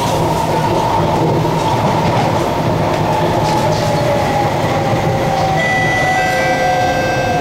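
Cabin sound of a Kawasaki-CRRC Sifang C151C MRT train running: the IGBT-VVVF traction inverter and motors whine in a slowly falling pitch as the train slows, over a steady wheel-on-rail rumble. About three quarters of the way in, higher steady tones join the whine.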